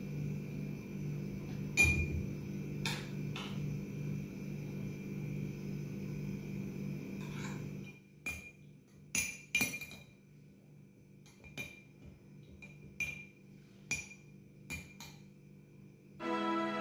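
A long metal spoon clinking against glass: a few knocks against a glass bowl while scooping, then about a dozen light, irregular clinks with a short glassy ring as it stirs in a tall sundae glass. Soft background music plays under the first half, stops about halfway, and returns near the end.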